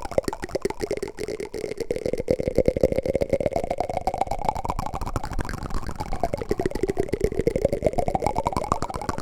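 Wooden spoon ASMR trigger: a fast, continuous patter of small clicks with a hollow resonance that rises and falls twice.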